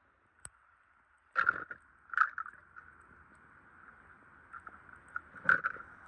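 A few sharp knocks and clatters, with handling noise between them, over a faint steady hiss.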